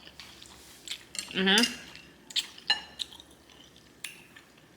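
Eating utensils clicking against a bowl of ramen noodles: a few sharp, separate clicks. A brief vocal sound comes about a second and a half in.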